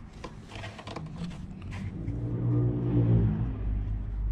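A passing motor vehicle's engine, its hum swelling from about halfway through and easing off near the end. Before it come a few light clicks and knocks of hands working on the bike's rear wheel.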